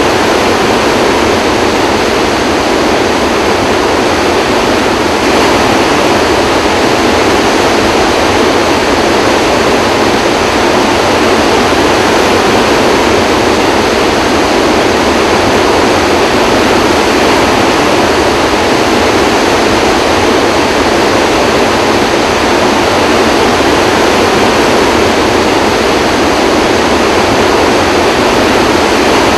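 Flood water discharging under Kaw Dam's open spillway gates into the turbulent stilling basin: a loud, steady rushing roar of churning white water, unbroken throughout.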